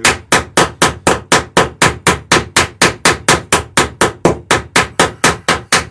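Small hammer rapidly peening a copper rivet in the wooden planking of a dory, a steady run of sharp metallic blows at about five a second that stops abruptly at the end.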